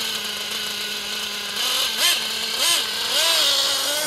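Radio-controlled car's small motor holding a steady hum, then revved in several short rising-and-falling blips from about two seconds in as the car is driven.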